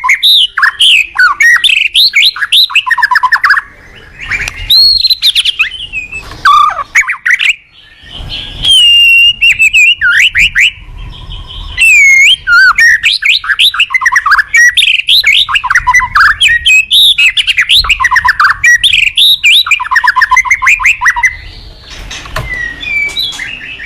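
White-rumped shama (murai batu) singing in full song: loud, fast, varied phrases of whistles and rapid trills, with short pauses between bursts. The song goes quieter near the end.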